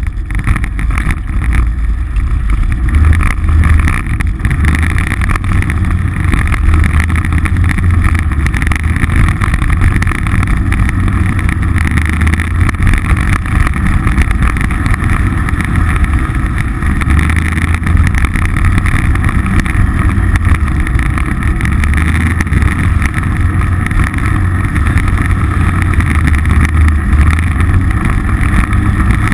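Polaris RZR side-by-side's engine running steadily under way on a dirt track, heard loud and close from the hood.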